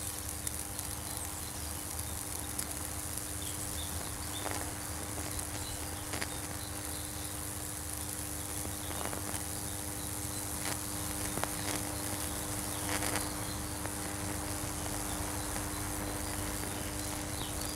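High-voltage discharge from a microwave oven transformer burning a Lichtenberg figure into wet plywood: a steady electrical buzz with a hum under it, broken by occasional sharp crackles as the current arcs and chars the wood.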